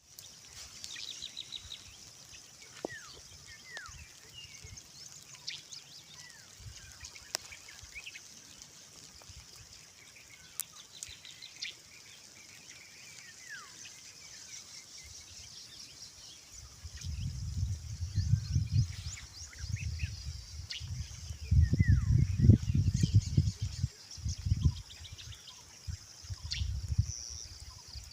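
Outdoor rural ambience: birds give short falling chirps over a steady high-pitched hiss. About two-thirds of the way in, a low rumbling noise comes and goes loudly for several seconds.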